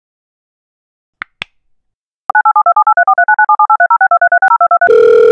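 Phone-dialing sound effect. Two quick clicks are followed by a fast run of keypad touch tones (DTMF), about ten beeps a second. Near the end a steady ringing tone begins as the call rings out.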